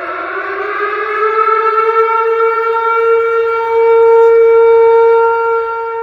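Tornado warning siren winding up, its wail rising in pitch over the first second or so and then holding one steady, loud tone before starting to wind down near the end.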